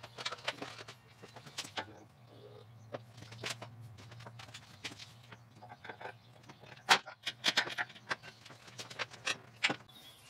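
Irregular metallic clinks and clanks, like chain jangling and metal parts knocking, as an engine hanging by chains from a shop crane is worked down into a car's engine bay, with a low steady hum underneath.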